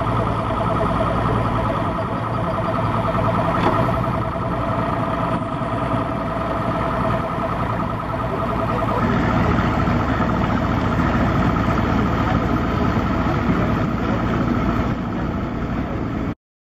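Motorboat engine running steadily at low harbor speed, a low rumble with a steady whine over it and a wash of water and wind noise. It cuts off abruptly near the end.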